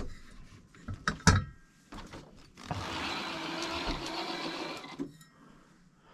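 A few handling knocks and clicks, then the small electric motor and gears of an RC crawler whirring steadily for about two and a half seconds and stopping abruptly.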